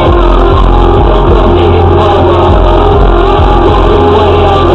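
Cabin noise of a moving car picked up by a dashcam: loud, steady engine and road rumble.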